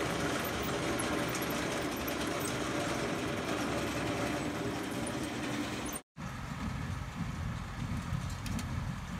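Tractor engine running steadily. The sound cuts off abruptly about six seconds in, and a lower, rougher engine rumble follows.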